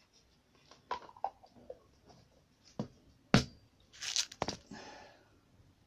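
Small craft bits and a clear plastic bag being handled on a workbench: a few light clicks, one sharp knock about three and a half seconds in, then a brief crinkly rustle of the plastic bag.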